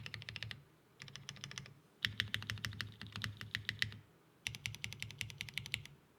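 Mechanical keyboard typing: lubed Cherry MX Black linear switches on a half aluminium plate under GMK keycaps, in quick runs of keystrokes with short pauses between them, stopping just before the end.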